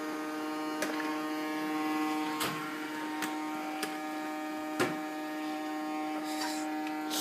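Small motor of a toy vacuum cleaner humming steadily at one pitch, with a few sharp clicks scattered through it.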